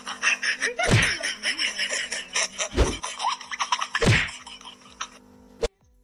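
A person laughing in bursts, with heavy thuds about one, three and four seconds in, over a steady low hum; the sound cuts off just before the end.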